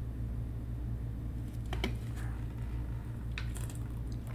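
Plastic water bottle handled and drunk from: a few sharp crinkles and clicks, then a denser run of crackling plastic near the end, over a steady low hum.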